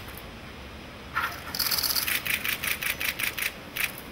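Still-camera shutters clicking in a rapid run, several clicks a second, starting about a second in, with a last click near the end.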